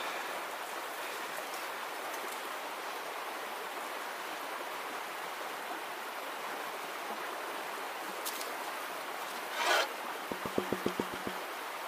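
A small creek running steadily. Near the end comes a brief swish of water, then a quick run of about eight light taps as a hand works the sand in a plastic gold pan.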